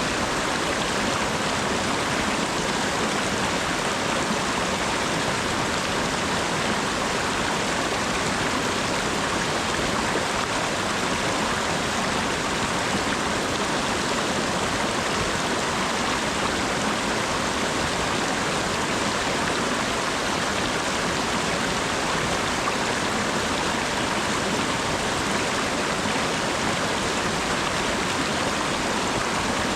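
Steady rain falling, an even, unbroken hiss with no single drops or breaks standing out.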